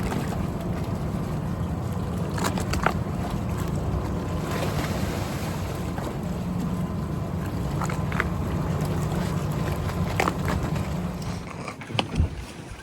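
A boat's motor running steadily, with wind and water noise and a few scattered knocks. Near the end the motor noise drops away and two louder knocks follow.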